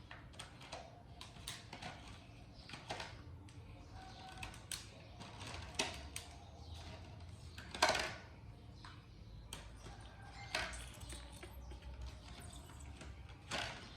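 Irregular light clicks and taps, with one louder knock about eight seconds in.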